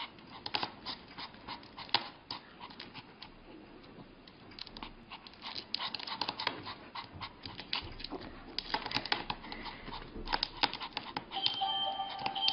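Pomeranian puppy's claws tapping and scratching on a glass tabletop as it paws at it, in quick irregular clicks. Music with held notes comes in near the end.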